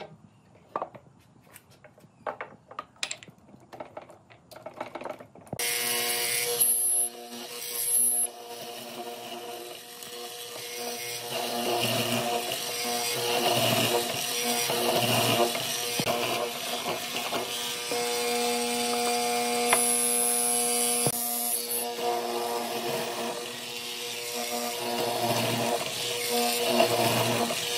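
Bench-top hollow chisel mortiser: a few knocks as the wooden beam is set in place, then about five and a half seconds in the motor switches on and hums steadily. Its square hollow chisel plunges repeatedly into the wood to cut a mortise, the sound swelling with each cut.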